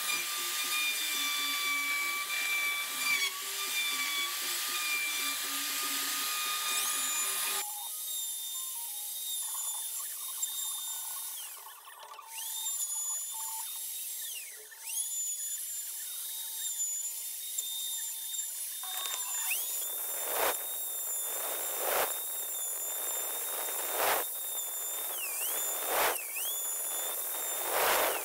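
Handheld electric router running on a flattening sled, cutting across a wooden slab: a steady high motor whine whose pitch sags briefly a few times. In the last third, louder bursts of cutting noise come about every two seconds.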